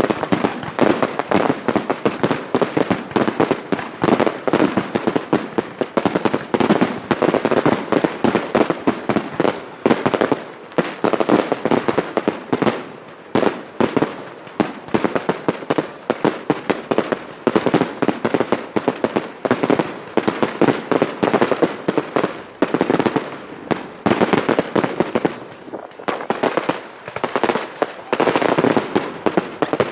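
Fireworks display: a dense, continuous barrage of shell bursts and crackling reports, with only brief lulls.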